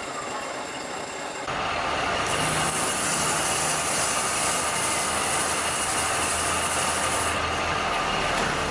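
A machine running steadily. It gets louder about a second and a half in, and a harsher hiss rides on top from about two seconds in until near seven seconds.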